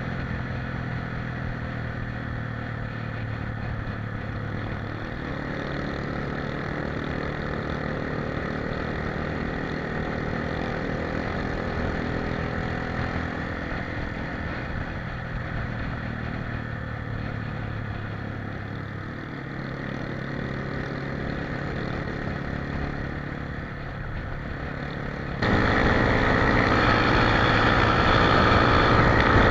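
An engine running steadily, its pitch stepping up and down a couple of times. About 25 seconds in, the sound cuts suddenly to a louder, brighter engine noise.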